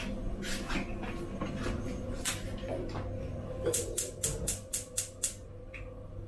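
A run of sharp, evenly spaced clicks, about four a second for a second and a half, over a steady low hum, with a few single clicks before it.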